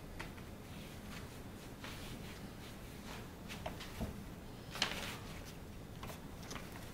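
Faint rubbing of a dye-soaked sponge along a leather strap, with scattered small clicks of handling; a soft knock about four seconds in and a sharper click just before five seconds.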